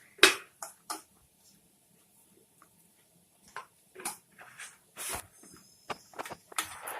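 Hands mixing salt into raw karapodi fish pieces in a bowl: scattered short taps and soft handling noises, irregular, with a quiet stretch partway through.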